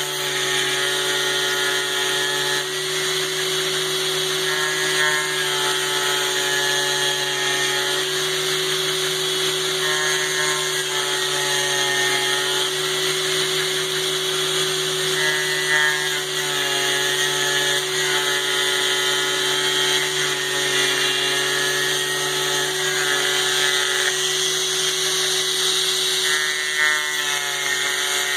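CNC foam cutter running, its stepper motors whining in tones that shift in pitch every second or two as the axes change speed and direction, over a steady hum and hiss.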